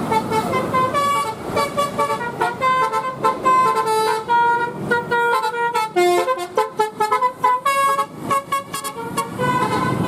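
Tour bus's multi-tone "telolet" horn playing a fast melody of short pitched toots that jump up and down in pitch.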